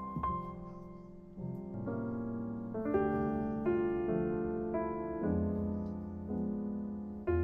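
Background piano music: a gentle melody of held notes that change about once a second.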